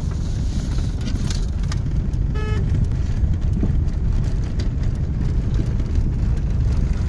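Road noise inside a moving car's cabin: a steady low rumble of engine and tyres, with scattered light knocks. A brief pitched beep comes about two and a half seconds in.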